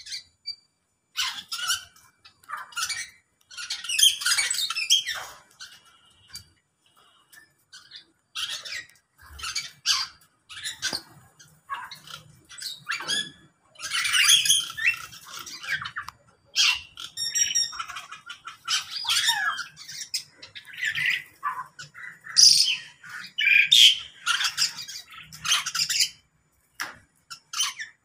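A mixed flock of aviary birds, lovebirds, cockatiels and mynas among them, calling in a run of short, harsh squawks and chirps. There is a brief lull early on and a quick repeated whistled trill about halfway through.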